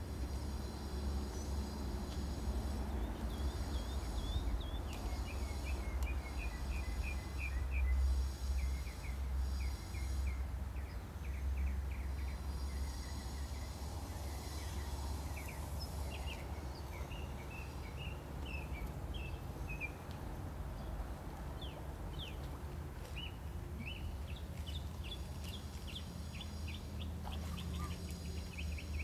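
Small birds chirping over and over in quick runs of short high notes, over a steady low rumble.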